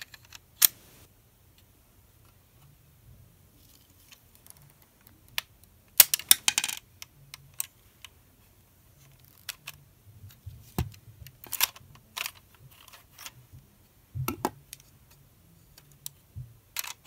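Sharp plastic clicks and clatter of LEGO Technic parts as the pistol's hinged section is swung open and snapped shut, with a quick run of clicks about six seconds in and scattered single clicks elsewhere.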